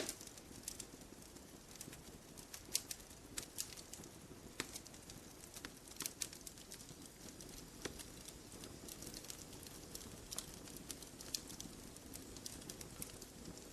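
Campfire logs burning, crackling with irregular sharp snaps over a soft, steady low hiss. The loudest snap comes right at the start.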